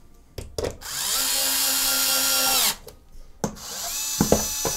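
Small electric screwdriver driving screws into an Xbox One S's metal shield. Its motor whine spins up about a second in, holds steady and winds down, then a few sharp clicks follow as the bit is moved, and it spins up again near the end.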